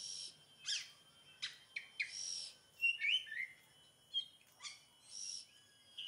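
Oriental magpie-robin calling: scratchy rasping notes three times, quick sharp chirps and a short run of whistled notes, spaced out with short gaps between them.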